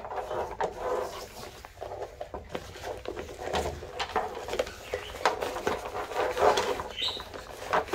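Oxford-fabric water bottle holder bag being handled and folded up: irregular rustling and scraping of the fabric and straps, with scattered small clicks.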